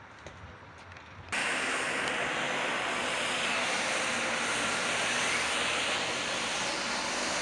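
Electric tram running past close by: a loud, steady rushing noise of wheels on rails that cuts in suddenly about a second in.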